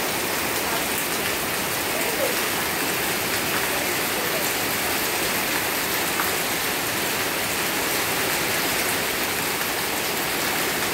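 Heavy downpour: rain falling steadily on a wet concrete yard, leaves and puddles, an even hiss with scattered drop taps.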